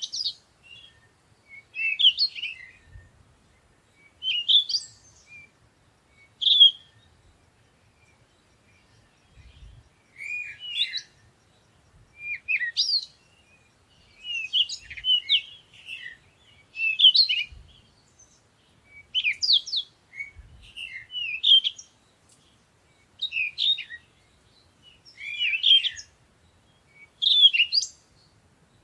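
Songbird singing: short chirping phrases, each about a second long, repeated roughly every two seconds with brief pauses between.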